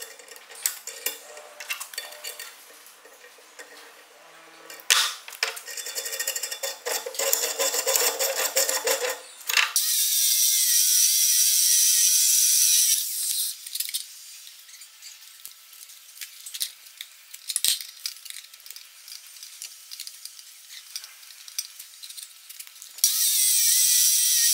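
Homemade steel bench vise's screw being turned by its T-handle, with metal clicks and clinks. About ten seconds in, a Bosch abrasive chop saw cuts into a metal piece with a loud, steady grinding hiss, which drops to quieter clicking for a while and comes back loud near the end.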